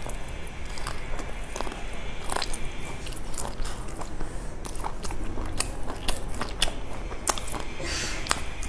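Close-miked biting and chewing of grilled skewered food, a steady run of short wet clicks and crunchy smacks from the mouth.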